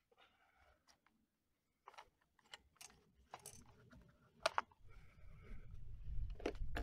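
Light clicks, taps and rustles of a boxed knife sharpener being handled and turned over in the hands, with a low rumble coming in about five seconds in.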